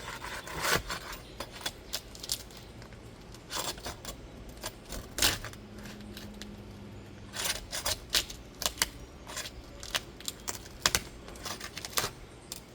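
Metal hand tool clicking and scraping against asphalt roof shingles and their nails as a shingle tab is pried loose: irregular sharp taps, some in quick clusters.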